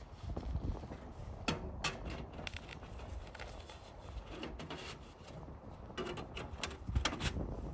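Rusty sheet-metal stovepipe sections knocking and scraping as one is lifted and slid onto the next, with several sharp clicks scattered through, over a low rumble.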